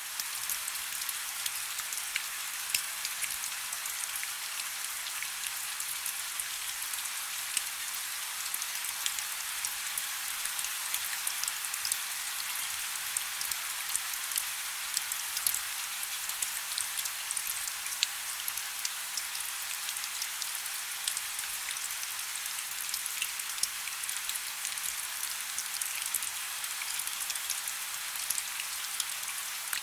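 Heavy rain falling steadily, a dense even hiss with many sharp ticks of individual drops striking a surface.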